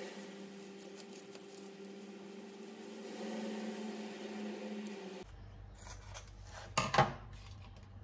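A steady low hum for about five seconds, then kitchen scissors snipping, a brief quick cluster of loud cuts near the end, cutting open a paper packet.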